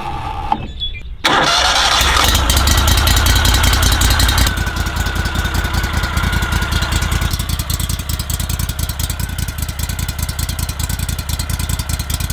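Pro-Drive 40 hp surface-drive mud motor starting: it catches about a second in, runs fast for a few seconds, then drops back to a steady idle.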